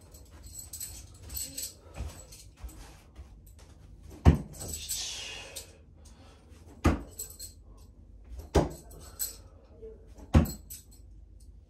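Steel bo-shuriken clinking together in the hand, then four sharp strikes about two seconds apart as thrown shuriken hit the target board.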